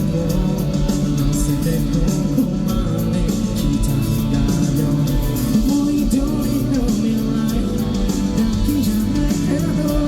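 Japanese rock band playing live: a singer over electric guitars and drums, loud and continuous.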